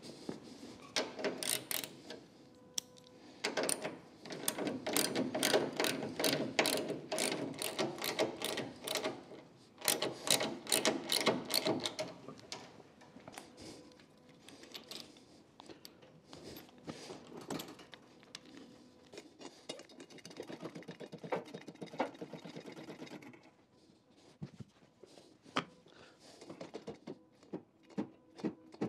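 Steel chain and hydraulic pulling ram being rigged: rapid metallic clicking and rattling, a dense run of clicks at about three a second for the first ten seconds or so, then scattered clicks.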